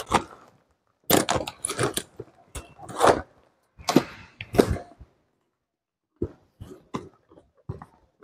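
Handling noise from handbags being rummaged through: bursts of rustling and fumbling of a purse's fabric and contents, then a few small clicks near the end.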